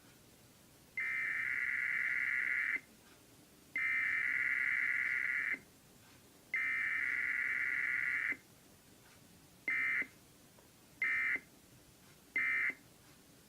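Emergency Alert System SAME data tones, a buzzy two-tone digital warble, during a Required Weekly Test. Three long header bursts of about two seconds each come in turn, then three short end-of-message bursts, with no attention tone between them.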